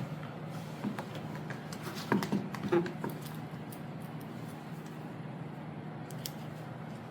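Handling noises of a shoe being measured: a few light knocks and rustles, bunched about one to three seconds in and once more near six seconds, over a steady low hum.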